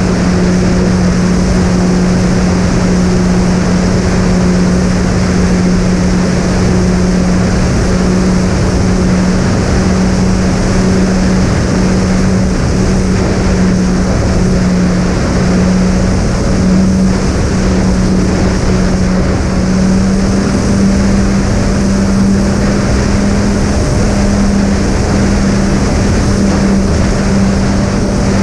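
Twin brushless motors with three-blade propellers running steadily in cruise flight, a loud hum made of two close pitches that drift slightly against each other, over a constant rush of wind.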